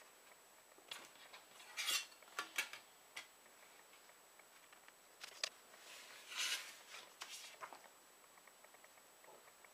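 Paper being folded by hand: a few short rustles and crinkles of the sheet, mixed with light clicks and taps as a metal ruler and a plastic set square are moved about on a cutting mat. The sounds come in scattered bursts, clearest about two seconds in and again in the second half.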